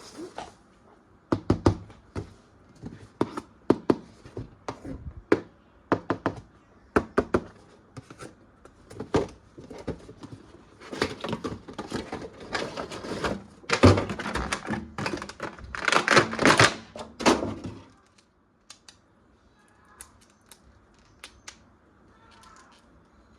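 Handling of plastic toys and their packaging: repeated sharp clicks and knocks, then a louder run of rustling and scraping from about 11 to 18 seconds in, followed by a few faint ticks.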